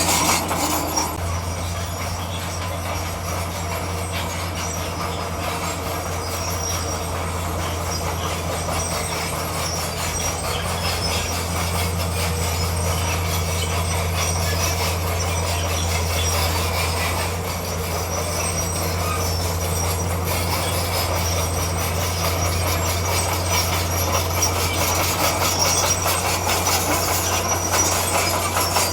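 Bulldozer's diesel engine running steadily, a low drone with a continuous metallic clatter and squeal from the crawler tracks on top.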